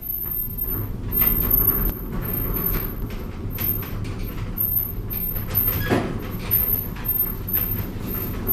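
Cab of a 1993 Tepper diagonal traction glass elevator travelling along its inclined track: a steady low rumble with light clicks and rattles, which gets louder at the very start. There is a short squeak about six seconds in.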